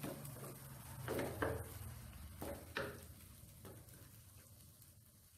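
Wooden spatula stirring and scraping a thick spice paste as it sautés in oil in a stone-coated wok: a few faint strokes, growing quieter toward the end.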